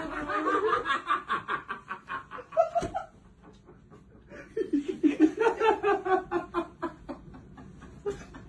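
Someone laughing hard in quick, breathy bursts, in two fits separated by a pause of about a second and a half.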